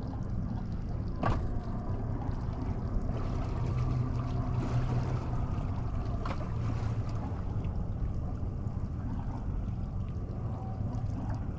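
A boat's motor running low and steady, with a sharp click about a second in and another about six seconds in.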